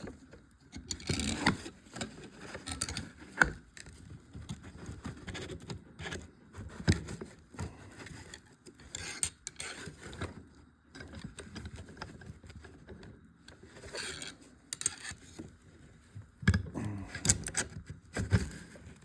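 Irregular metal clinks, scrapes and rattles of hand tools, a screwdriver and a gear puller, being worked against a hydraulic pump to free a stuck part from its shaft, with one sharp knock about three and a half seconds in.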